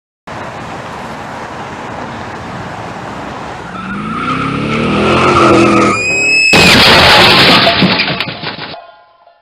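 Car crash sound effect: a car's engine rising in pitch as it speeds up, with tires screeching for about two seconds. About six and a half seconds in comes a loud crash impact, followed by clattering debris that dies away.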